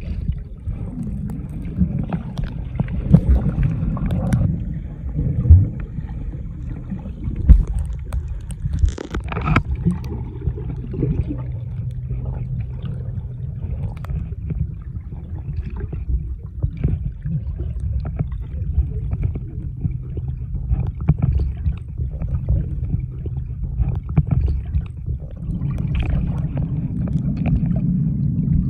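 Muffled underwater sound of moving water: a steady low rumble with gurgling, broken by scattered short clicks and knocks.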